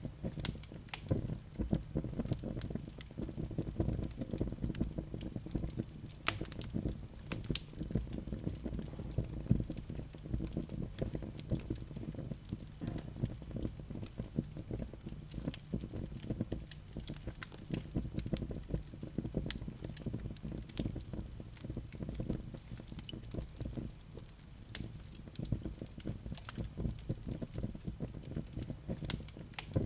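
Wood fire in a fireplace crackling steadily: a constant stream of small pops and snaps over a low rumble of the flames, with sharper louder cracks now and then.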